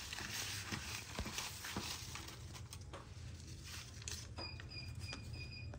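Faint scattered clicks and handling noises over a low steady hum, then, near the end, a quick run of about five short, high, even beeps.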